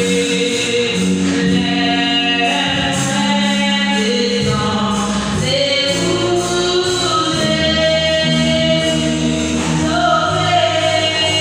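Gospel song sung by a choir, several voices holding long notes in harmony.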